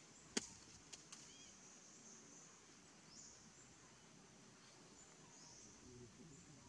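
Faint forest ambience: a steady high insect hum with a few short bird chirps, and a sharp click about half a second in followed by two softer clicks.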